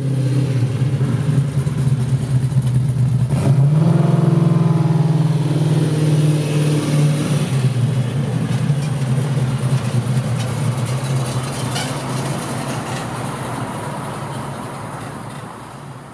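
Freshly built Chevy 454 big-block V8 running at its first start-up, with no exhaust system fitted yet. It runs steadily, revs up about three and a half seconds in, holds, drops back to idle a few seconds later, and the sound gradually fades.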